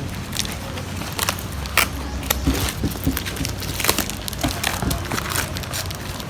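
Packaging being handled and opened: irregular crackling and crinkling with sharp clicks every fraction of a second, over a steady low hum.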